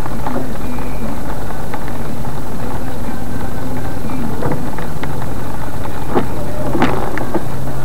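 Steady low hum of a vehicle engine running, over a constant noisy wash, with a couple of short knocks near the end.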